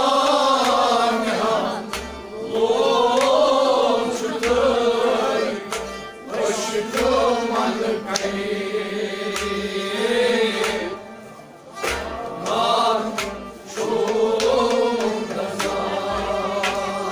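Kashmiri Sufi devotional song: men's voices singing long melodic phrases to harmonium accompaniment, with a steady percussive beat beneath.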